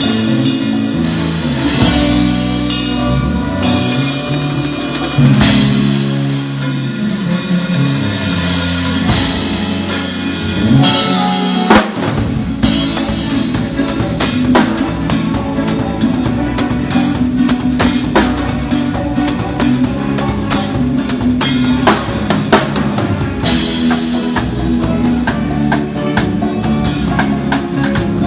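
Drum kit played live and up close, bass drum, snare and cymbals in a steady brega groove, over the band's bass line and keyboards. There is one loud accent about twelve seconds in.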